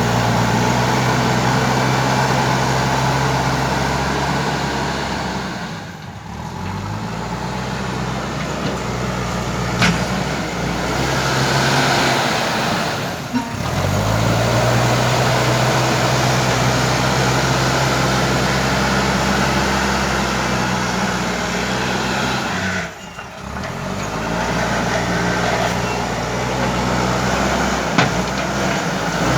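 JCB 3DX backhoe loader's diesel engine running steadily under load, with three brief drops after which the engine note climbs back up, and a few short knocks.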